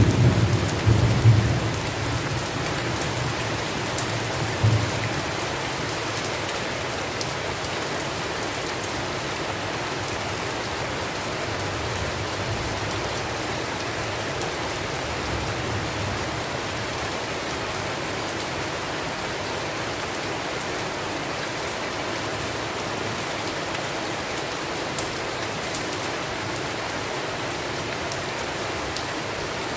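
Steady rain falling, an even hiss, with thunder rumbling low over the first few seconds and dying away, then a fainter rumble of thunder about halfway through.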